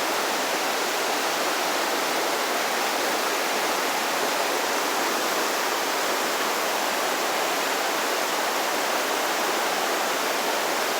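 Rushing floodwater of a river swollen far over its banks by heavy rain: a steady, unbroken roar of fast-moving water.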